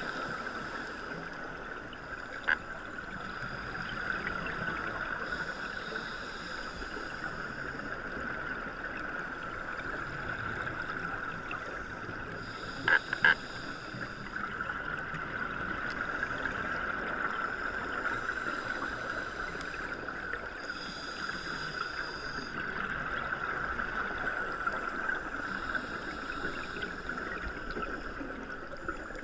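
Underwater ambience picked up through a dive camera housing: a steady hiss with a constant whine, and every few seconds a second or two of bubbly hissing from scuba divers exhaling through their regulators. A sharp click comes about two and a half seconds in, and a louder quick cluster of clicks, the loudest sound here, about thirteen seconds in.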